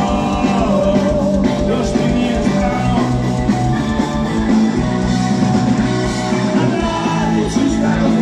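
Live rock band playing, heard from the audience: electric guitar, bass and drums at full volume.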